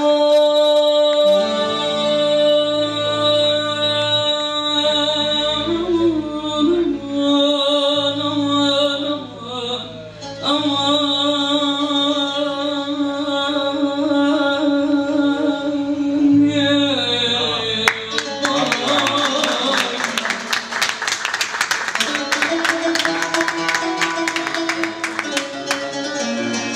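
A man and a woman singing in turn into microphones, holding long notes with a wavering pitch over a guitar. From about eighteen seconds in, fast guitar strumming comes to the fore.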